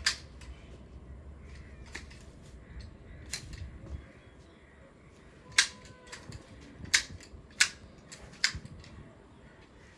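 Pruning shears snipping through shrub branches: a string of sharp, single snips at uneven intervals, several of them louder in the second half.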